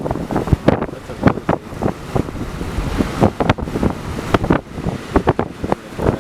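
Hurricane wind buffeting the microphone: a constant rumble broken by many irregular thumps and crackles as gusts hit.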